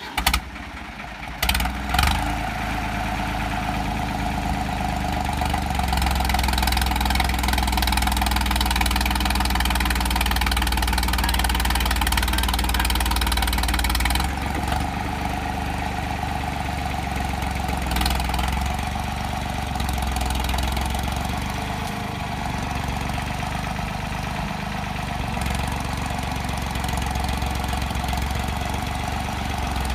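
New Holland 3630 tractor's three-cylinder diesel engine running under load as the tractor works to climb out of a ditch, its note stepping up and down several times as the load and throttle change. A few sharp knocks come in the first two seconds.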